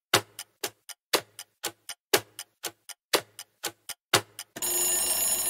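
Quiz countdown-timer sound effect: a clock ticking, a sharp tick twice a second, each followed by fainter clicks. Near the end it gives way to a steady alarm-like ringing as the timer runs out.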